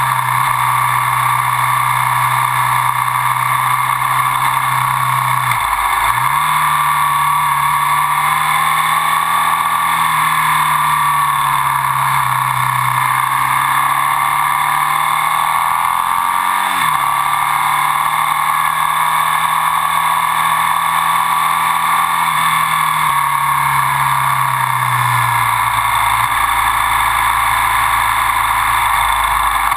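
Ducati Sport 1000's air-cooled L-twin engine running under way, its note rising and falling through the bends and dropping sharply twice, about 6 and 17 seconds in, under heavy wind and road noise at the low-mounted camera.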